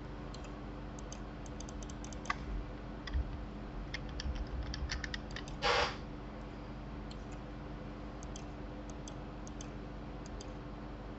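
Computer keyboard keys and mouse buttons clicking now and then, with a quick run of keystrokes about four to five seconds in and a brief louder noise just after, over a steady low hum.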